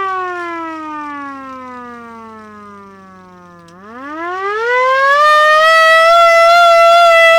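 World War II–style hand-cranked air raid siren wailing with its fan opened for full volume. The pitch falls steadily for nearly four seconds, then climbs quickly back up and holds at a high steady wail.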